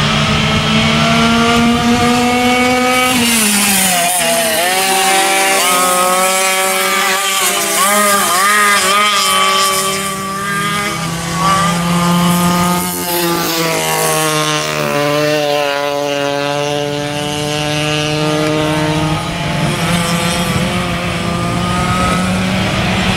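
Several vintage racing go-karts' small engines running at high revs together, their pitches overlapping. Each rises as a kart accelerates and falls away as it lifts for the corners, with two clear drops a few seconds in and about halfway through.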